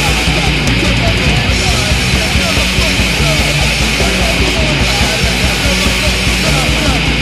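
Loud, fast UK82-style punk rock song: distorted electric guitar over a fast, driving beat.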